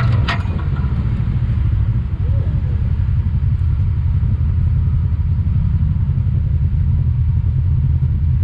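Side-by-side UTV engine running steadily at low speed, a low even drone, heard from on board the vehicle. A couple of sharp clicks right at the start.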